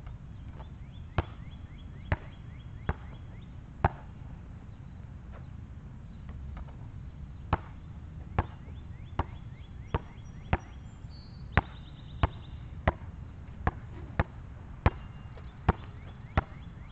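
Basketball bouncing on an asphalt court as it is dribbled: sharp single bounces, four, then a pause of about three seconds, then a steady run of thirteen at a bit faster than one a second. A low steady rumble lies underneath.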